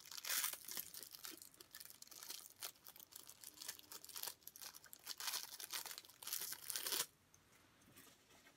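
Cellophane packet of saltine crackers crinkling in the hands and being torn open, in quick crackly bursts that stop abruptly about seven seconds in.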